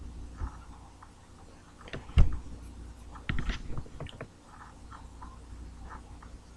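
A few soft knocks and rustles over a low steady hum, the sharpest knock about two seconds in and a short cluster of clicks a second later.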